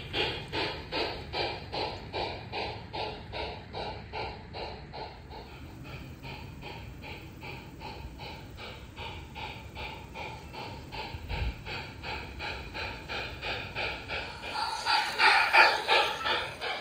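Rhythmic steam chuffing from the electronic sound unit of an LGB G-scale steam locomotive model running on garden track, about three chuffs a second. It is fainter in the middle and loudest near the end as the engine comes close.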